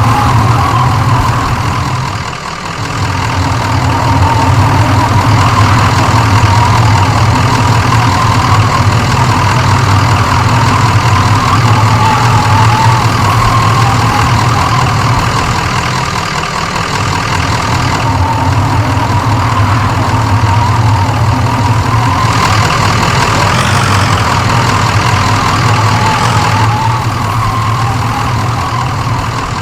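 Motor vehicle running: a steady, loud low engine and road rumble, easing off briefly a couple of times.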